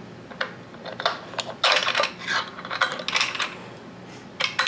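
Steel bolt and spacers clinking and rattling against the aluminium jack plate bracket as the bolt is slid out by hand. Scattered light clicks give way to a denser run of jingling clinks in the middle, with one sharp clink near the end.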